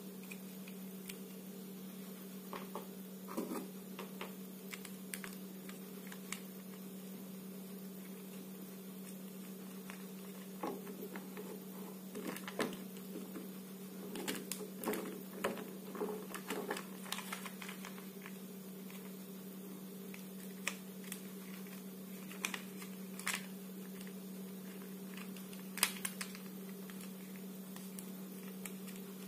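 Hard plastic parts of a take-apart toy construction truck clicking and knocking as they are handled and pulled apart, in scattered bursts of light clicks, over a steady low hum.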